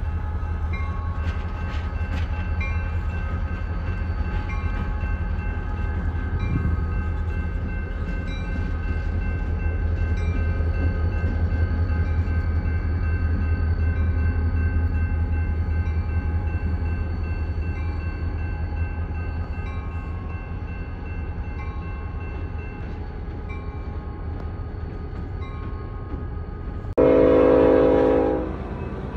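Diesel locomotive engine running with a steady low rumble as a Montana Rail Link unit works the yard. About 27 seconds in, a sudden loud multi-note train horn sounds for about a second and a half.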